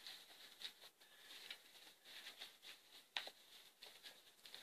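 Faint rustling of fabric as a sewn stuffed toy is turned right side out by hand, with scattered light ticks and one sharper click about three seconds in.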